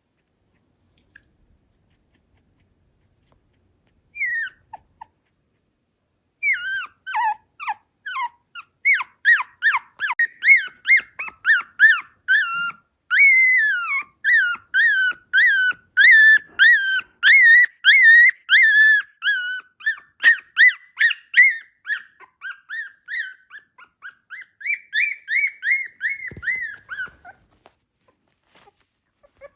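Miniature Schnauzer puppy whining in a long run of short, high-pitched cries, about two or three a second, after a couple of brief cries, ending in one longer drawn-out whine.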